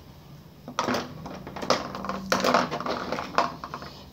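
Handling noise on a desk: three short bursts of rustling and clicking as paper and drawing tools are moved about.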